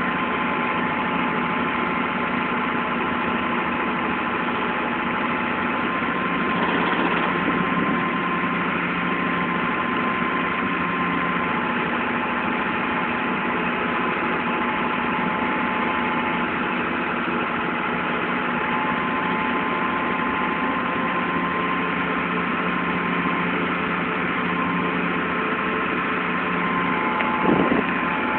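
Renault 1181.4 tractor's diesel engine running steadily while it drives a Storti horizontal mixer wagon, with a steady whine over the engine note. A short bump sounds near the end.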